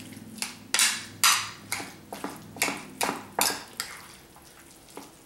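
Utensil scraping and clinking against a glass baking dish while stirring a thick mix of canned chicken, vegetables and cream of mushroom soup, about two strokes a second as the chicken chunks are broken up.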